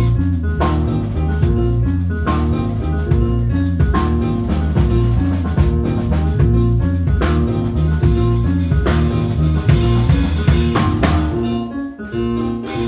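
Instrumental jazz-fusion band music: drum kit, electric bass and keyboard playing together over a busy moving bass line. It drops out briefly near the end before coming back in.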